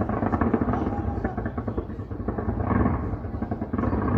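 Fireworks going off in rapid succession, heard as a dense continuous rumble of many overlapping bangs and crackles with no single distinct bang standing out.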